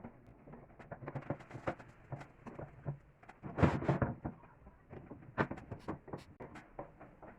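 Scattered light clicks and knocks of objects being handled, with one louder clatter about three and a half seconds in.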